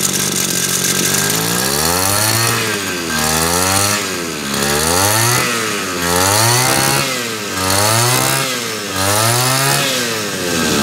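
Hitachi 33cc two-stroke brush cutter engine idling briefly, then revved up and down about six times on the hand throttle and dropping back to idle near the end, a test run of the engine.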